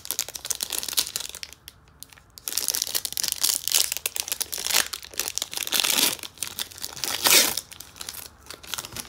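Foil wrapper of a football trading-card pack crinkling and tearing as it is ripped open by hand, with a brief lull about two seconds in.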